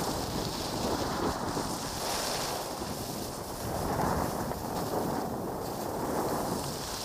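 Wind buffeting the microphone while skiing downhill, with the hiss of skis scraping across groomed snow that swells and fades about every two seconds.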